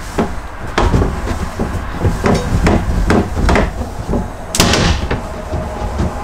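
Rag being rubbed hard over a plastic portable-toilet seat and rim: a run of irregular knocks and scrubbing against the plastic, with one louder knock about four and a half seconds in.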